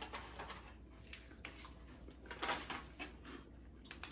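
Faint rustling of paper on a table, with a few light clicks and taps; the loudest rustle comes about two and a half seconds in.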